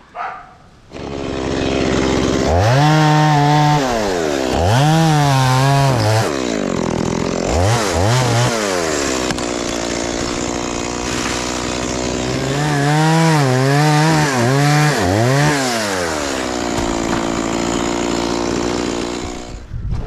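Stihl two-stroke chainsaw cutting a mango tree limb. It comes in about a second in and is throttled up and down in repeated bursts, with steadier running between them.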